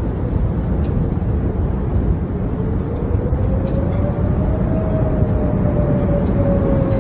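Strong tornado wind blowing loudly and steadily against the microphone, a dense low rumble. A faint single tone slowly rises and then falls behind it.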